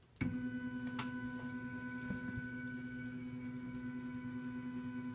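MakerBot Replicator 2X build platform on aluminum Z-axis arms with bearings, driven down by its stepper motor: a steady whining hum that starts suddenly and cuts off about five seconds later.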